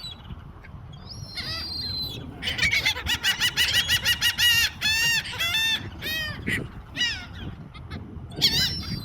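Seagulls calling: a quick run of harsh, arching calls starts about two and a half seconds in, then slows into longer separate calls. Thinner, higher calls come near the start and near the end, over a steady low rumble.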